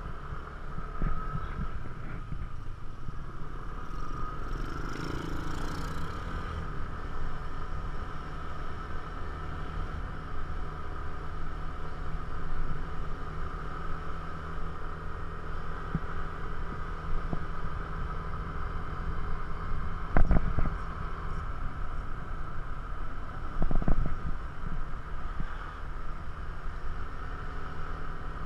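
Yamaha scooter running steadily while being ridden, its engine giving a steady hum with a constant higher whine over a low rumble of wind and road noise on the microphone. Two brief louder jolts, about twenty and twenty-four seconds in.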